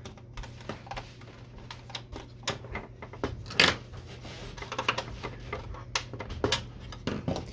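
Irregular clicks and knocks of plastic printer parts being handled and pried during disassembly of an Epson XP-340, with a louder knock about three and a half seconds in and a cluster of clicks near the end. A steady low hum runs underneath.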